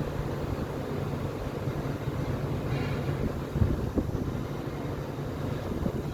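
Strong wind buffeting the microphone, a steady low rumble, with a couple of short knocks a little past the middle.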